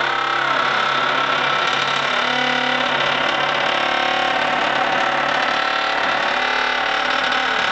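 Heavy sandstone slab door grinding and groaning on its stone pivot as it is swung, a continuous rough drone with moaning tones that slide up and down in pitch.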